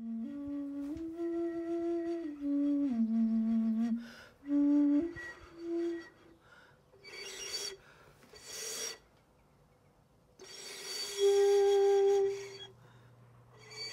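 Clay xun (Chinese vessel flute) being played: a short run of held, low, pure notes stepping up and down, then a few breathy, airy blows, the last of which carries a steady note.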